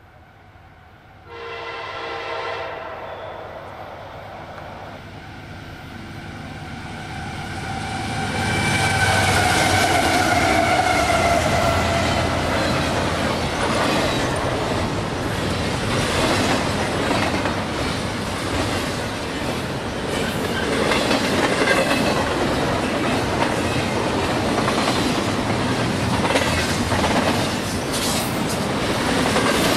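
CSX diesel-hauled double-stack container freight train: a short horn blast about a second in, then the locomotives pass with their sound dropping in pitch, followed by the loaded well cars rolling by with steady wheel clatter over the rail joints.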